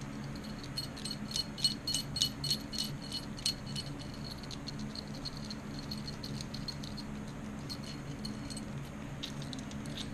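Small metal parts rattling and clinking while being handled, a quick run of light clicks for about three seconds, then a few more near the end. A steady low hum runs underneath.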